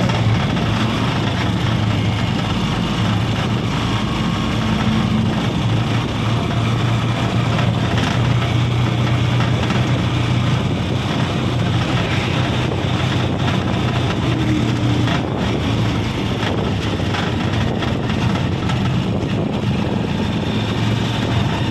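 A moving vehicle's engine running steadily with a low hum, mixed with a continuous rush of tyre and road noise while the vehicle drives up a winding road.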